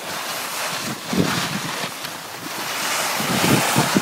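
Skis hissing and scraping over snow during a downhill run, with wind buffeting the microphone; the rush swells about a second in and again near the end.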